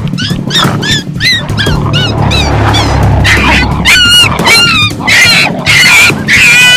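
Coyote yips, a quick series of short rising-and-falling barks that turn into longer wavering howls and squeals about halfway through, over steady background music.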